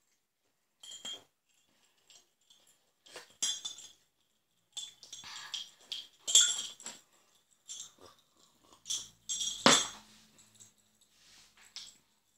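A metal teaspoon clinking and tapping against a glass tumbler of water in irregular short bursts, with one louder, sharper clink about ten seconds in.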